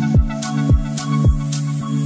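Background music with a steady beat: a deep, falling-pitch kick drum about twice a second over sustained bass notes.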